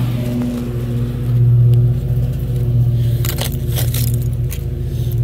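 A steady engine drone runs throughout and swells briefly about a second and a half in. A few sharp scrapes and clicks of digging in loose dirt come about three to four seconds in.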